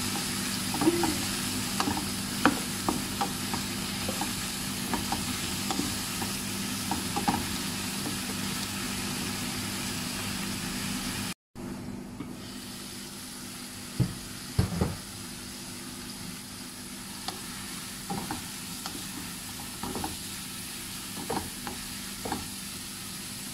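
Chicken and vegetables sizzling in a nonstick wok while a spatula stirs them, with scattered clicks of the spatula against the pan. About halfway through the sound cuts out for an instant and returns quieter, with a few louder knocks and more spatula clicks.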